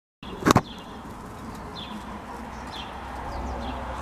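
Young female canaries in a cage giving short high chirps, about one a second. A sharp knock sounds about half a second in.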